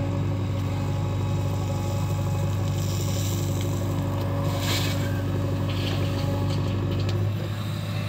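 JCB 3DX backhoe loader's diesel engine running steadily under load while the backhoe works, with a couple of brief hissing rushes around the middle. The engine eases slightly near the end.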